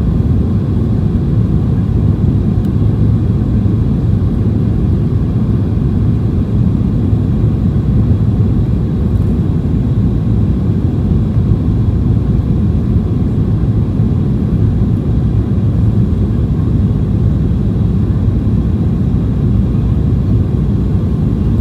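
Steady low rumble of engine and airflow noise heard inside the cabin of a Boeing 737-800 with CFM56-7B engines.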